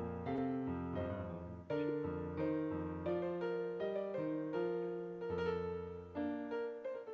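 Piano playing a slow piece, chords and melody notes struck about once a second and left to ring and fade.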